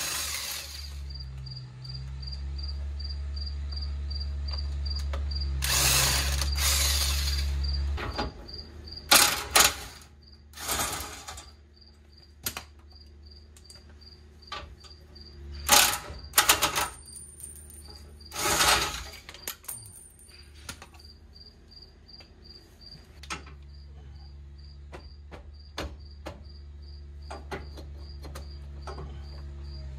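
Cordless impact wrench running in several short bursts on the rear driveshaft bolts, the longest about six seconds in. Under it an insect chirps steadily, about three chirps a second, and a low steady hum sounds at the start and again near the end.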